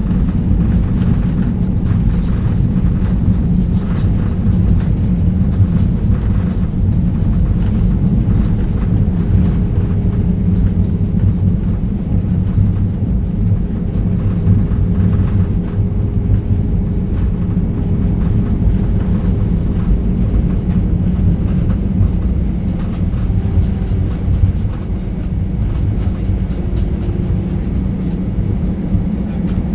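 Jet airliner cabin noise during the landing rollout: a loud, steady low rumble of the engines and the wheels on the runway, with a faint hum over it through the middle.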